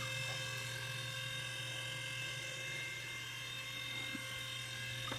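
A steady low hum with fainter, thin high-pitched whining tones above it, unchanging.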